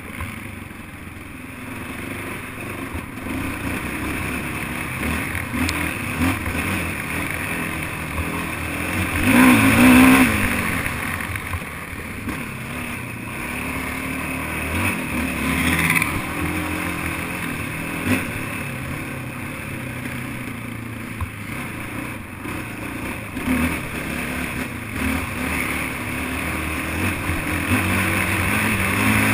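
Racing ATV (quad) engine revving up and down as it is ridden, pitch rising and falling with the throttle, with a louder surge about ten seconds in.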